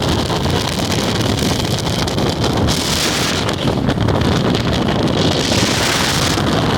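Steady rumble of a vehicle driving on a snowy road, with wind rushing and a hiss that swells twice, about three seconds in and again near the end.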